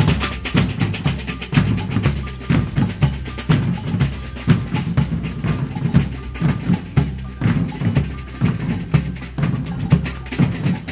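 Parade drum band playing: big bass drums and snare drums struck together in a busy, steady rhythm.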